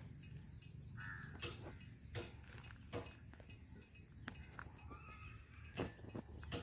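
Faint, steady high-pitched insect trill, typical of crickets, with scattered soft clicks and a brief chirp about a second in.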